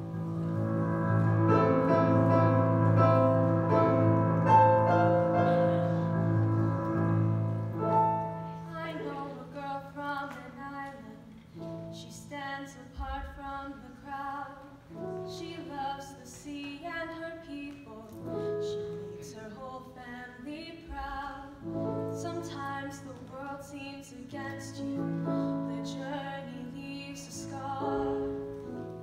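Choir with digital piano accompaniment: a loud sustained opening passage, then about eight seconds in a solo female voice sings over the piano.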